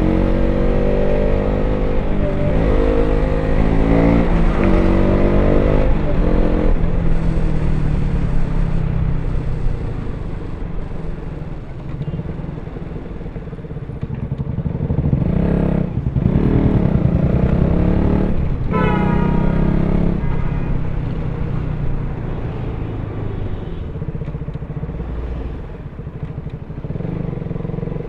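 KTM RC 200's single-cylinder engine through its stock exhaust, ridden hard. It revs up and shifts through several gears in the first few seconds, then settles to steadier running, and rises again in one strong rev about two-thirds through.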